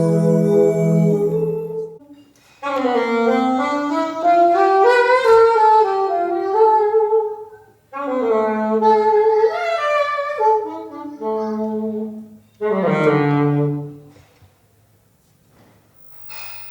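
Big band horns, saxophones to the fore, playing jazz phrases during a sound check: a held chord, then three phrases with short breaks between them, stopping about fourteen seconds in.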